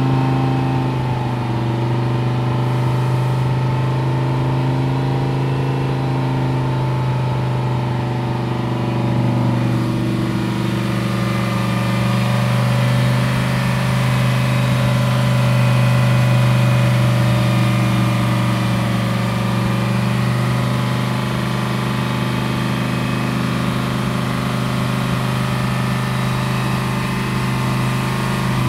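Audi R8 LMS GT4 race car's V10 engine running at a steady idle during warm-up, its note shifting slightly now and then.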